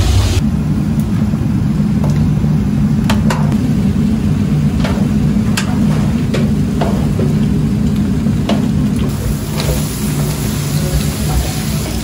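Braised dried pollock being stirred in a large wok with a plastic spatula: scattered sharp clacks of the spatula against the pan over a steady low hum from the gas range. A frying hiss comes in near the end.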